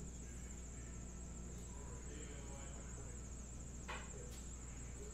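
Quiet room tone: a steady low hum and a constant high-pitched whine, with a sharp click about four seconds in and a fainter one just after.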